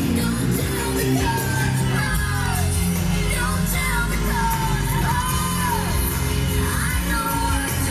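Pop music with a sung vocal line over a steady bass and beat.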